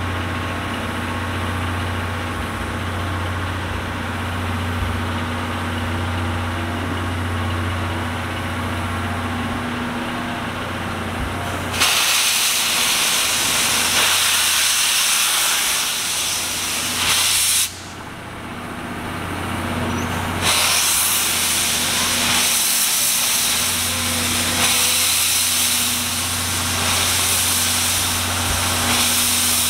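Steam locomotive C61 20 releasing steam: a steady low hum gives way, about twelve seconds in, to a loud hiss. The hiss runs for about six seconds, cuts off sharply, and starts again a couple of seconds later, lasting almost to the end.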